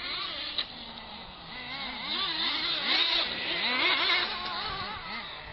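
Small two-stroke glow engines of nitro RC stadium trucks racing, their pitch rising and falling as they rev and lift off. One truck passes close and gets louder from about two seconds in, and there is a sharp click about half a second in.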